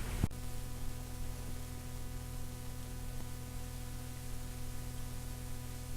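Steady cassette tape hiss with a low electrical hum underneath, after a short click about a quarter second in.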